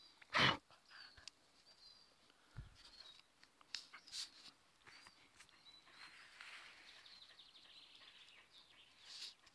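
A dog panting with its mouth open while small birds chirp high in the background. A short, loud sudden noise comes about half a second in, with a few fainter sharp sounds later.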